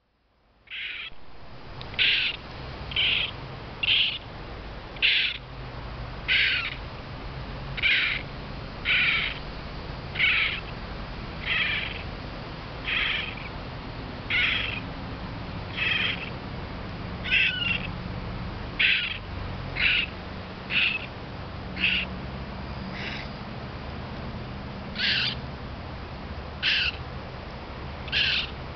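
Northern raccoon kit crying: a short, high-pitched call repeated over and over, roughly one every second or so, with a few longer pauses.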